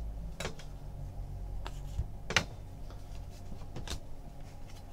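Trading cards handled by hand: a handful of soft clicks and swishes as cardboard cards are flicked and slid against one another while a pack is sorted, over a low steady hum.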